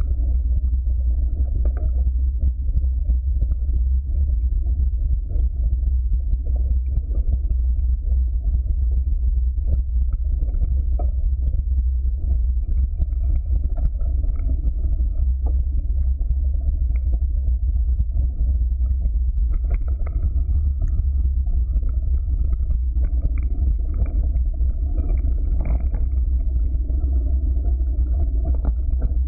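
Mountain bike rolling down a rough dirt trail of stones and dry leaves, heard through a bike-mounted camera: a loud, steady low rumble of wind and vibration on the microphone, with frequent small knocks and rattles as the tyres hit the bumps.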